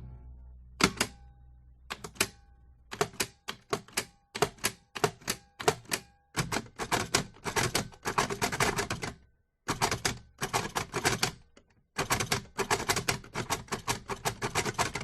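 Perkins Brailler being typed on: irregular runs of sharp mechanical key strikes as the embossing heads punch braille dots into the paper, broken by short pauses. It opens with one heavier knock that leaves a low rumble for a couple of seconds.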